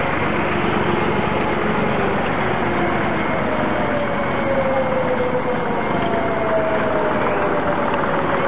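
Old farm tractors' engines running as the tractors drive past one after another. As each one goes by, its engine note slowly falls in pitch.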